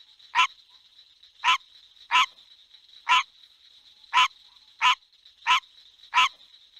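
Australian green tree frog (Ranoidea caerulea) calling: a series of short, barking croaks, eight of them at roughly one a second.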